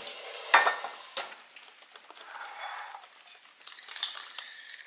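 Wire whisk beating an egg into cake batter in a stainless steel mixing bowl: wet scraping with sharp clicks of the wires against the metal, the loudest about half a second in.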